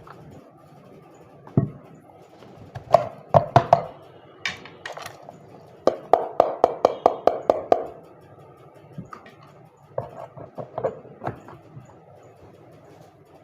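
A manual hand-operated food chopper chopping green chillies, ginger and garlic, its blade knocking in quick runs of strokes, fastest at about six a second in the middle.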